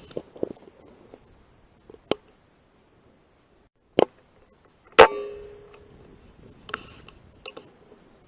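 Rifle shots at rats: a sharp double crack about four seconds in, then the loudest crack about a second later with a short ringing tail, and a fainter click before them.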